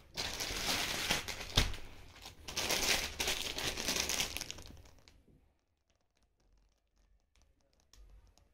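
Plastic courier mailer bag and the clear polythene wrapper around a new sweatshirt crinkling and crackling as they are pulled apart and handled, with one sharp click about one and a half seconds in. The crinkling stops about five seconds in, leaving near silence with a few faint ticks.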